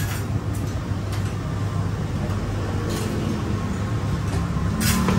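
Steady low hum of background noise, with a few sharp clinks of utensils on ceramic dishes near the end.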